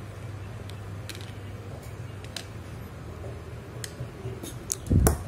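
Faint scattered metal clicks and ticks of a small screwdriver and small spinning-reel parts being handled on a table, over a steady low hum. A louder knock comes about five seconds in.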